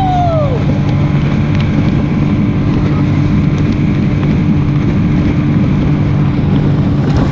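Outboard motor of a small Craig Cat catamaran running at a steady speed, with wind buffeting the microphone. A brief falling whoop fades out in the first half-second.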